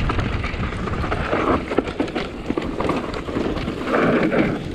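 Mountain bike descending a dirt trail at speed: tyres rolling over dirt and roots, with frequent rattles and knocks from the bike, under a steady rumble of wind on the microphone.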